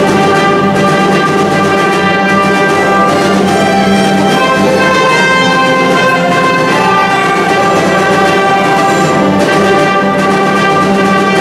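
Symphony orchestra playing live, with long sustained notes held across the ensemble.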